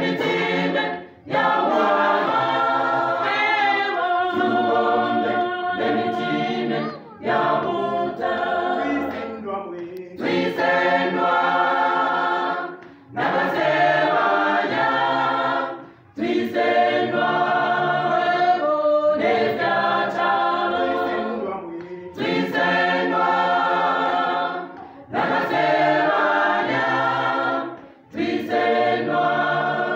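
Gospel choir singing a Bemba hymn a cappella, many voices together, in phrases of a few seconds broken by short pauses for breath.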